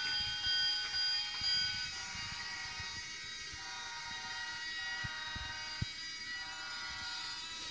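Battery-powered Brio Smart Engine toy train running on wooden track: a steady electric motor whine that shifts in pitch a few times, over the low rattle of its wheels, with a few clicks over the track joints.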